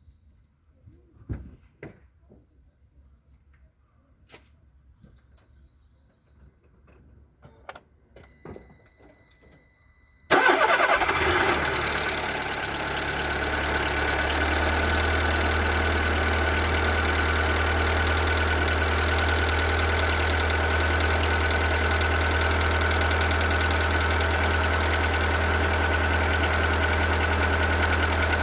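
A few clicks and a short electronic beep, then about ten seconds in the Seat Ibiza's 1.4 BXW petrol four-cylinder starts, flares loud and settles within a few seconds into a steady idle. The idle carries a knock that the owner takes for piston slap.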